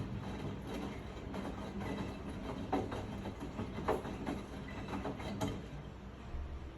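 Miele front-loading washing machine running in an intermediate spin, its drum turning with a steady hum from the inverter-driven motor and irregular knocks roughly once a second.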